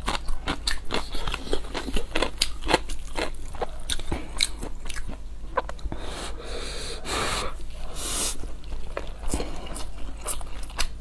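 Close-miked chewing of pan-fried dumplings and noodles, full of wet mouth clicks and smacks. From about six seconds in come a few longer slurps as a chopstick-load of noodles is sucked in, then the chewing clicks resume.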